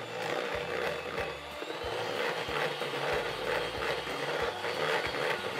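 Electric hand mixer running steadily, its beaters whipping chocolate buttercream in a stainless steel bowl, with a regular rattle about three times a second.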